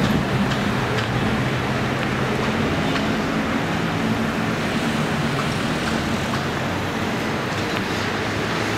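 Traffic on a busy multi-lane city street: a steady wash of engine and tyre noise from passing cars and motorbikes, with a low engine drone that eases off about halfway through.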